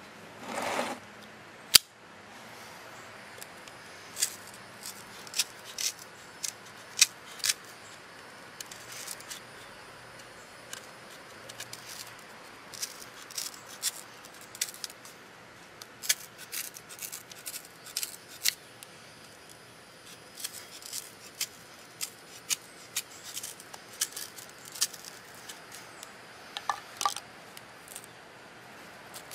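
Knife cutting corrugated cardboard: a run of short, irregular clicks and scrapes as the blade scores and cuts through, with a brief rustle and a sharp click near the start.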